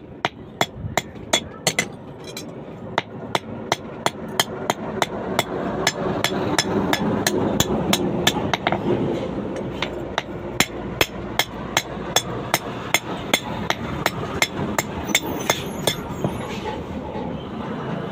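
Blacksmith's hammer striking steel on an anvil in a steady run of sharp, ringing blows, about two to three a second, as a point is forged on a rebar rod. A constant noisy background sits under the blows.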